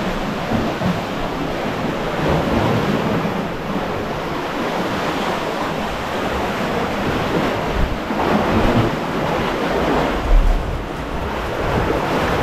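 Ocean surf surging and churning through a rocky sea cave, a continuous wash that swells louder about eight seconds in.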